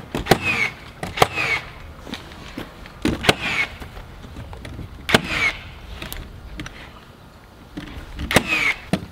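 Nail gun firing nails through OSB sheathing into the wall framing: several sharp shots, a second or two apart, each with a brief falling ring.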